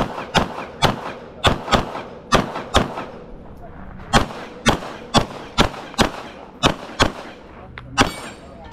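Rapid handgun fire from a carry optics pistol: many sharp shots, mostly in quick pairs and short strings, with brief pauses between.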